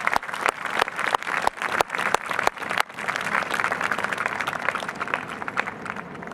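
Crowd applauding, with loud sharp claps for the first few seconds, then softer clapping that thins out near the end.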